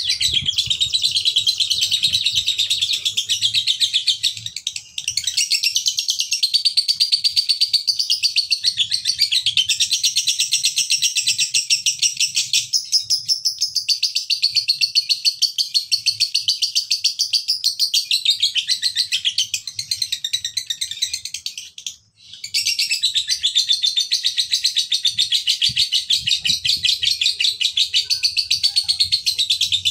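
Male Fischer's lovebird singing the long, very rapid chattering trill that keepers call 'ngekek'. It breaks off briefly twice, about 5 and 22 seconds in.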